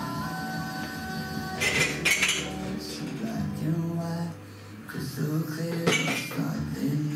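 Music with singing plays throughout. Crockery clinks as it is handled at a kitchen counter about two seconds in, and there is another clatter near six seconds.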